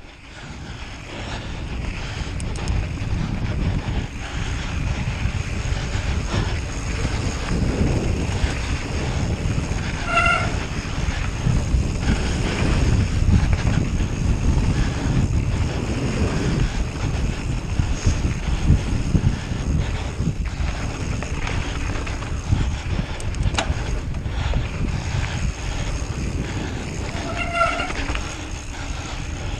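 Wind buffeting the microphone while riding a bicycle: a steady low rumble that builds over the first few seconds. A short high squeak comes through about ten seconds in and again twice near the end.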